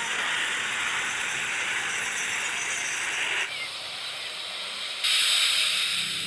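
Passenger jet airliners' turbofan engines: a steady hissing roar with a thin high whine. The sound changes abruptly about three and a half seconds in, then grows louder and brighter about five seconds in.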